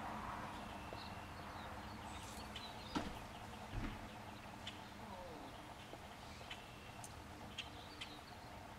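Honey bees buzzing steadily around weeping cherry blossoms, with scattered short bird chirps. A sharp click about three seconds in and a low thump just before four seconds are the loudest moments.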